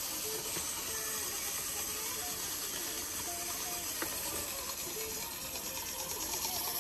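Small plastic clockwork wind-up hamster toys being wound and left to run: the steady ratcheting whir of their little spring-driven gears.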